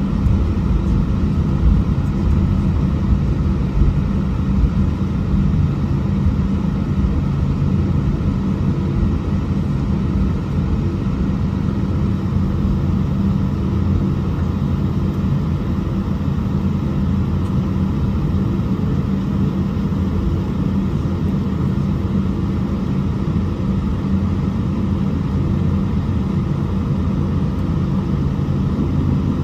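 Steady low rumble and hum of a jet airliner taxiing, heard from inside the passenger cabin with the engines near idle.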